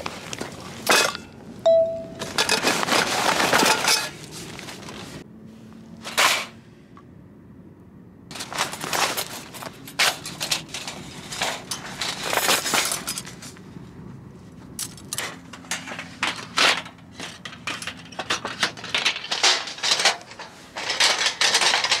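Metal clatter and scraping from a Picogrill-style stainless steel fire pit being assembled by hand: the thin stainless fire bed flexing and rattling, and the steel rod frame clinking against it. The clatter comes in several bursts with short pauses between.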